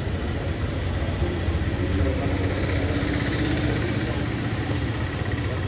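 A motor vehicle engine idling steadily, a continuous low hum.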